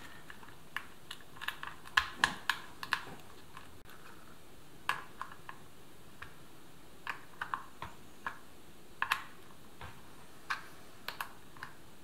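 Small metal spanner clicking on a hex nut as it is refitted and turned to tighten a ground strap's terminal onto a circuit board: scattered sharp metal clicks at an uneven pace, some in quick pairs.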